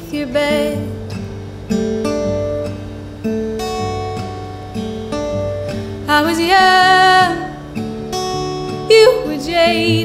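Acoustic guitar playing a song, with a woman's voice singing phrases over it, most strongly from about six seconds in and again near the end.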